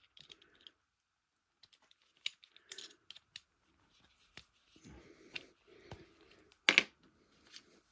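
Small scattered clicks and taps of a handheld rotary tool being handled as its chuck is worked loose to take out a carving burr, with a sharper double click about seven seconds in.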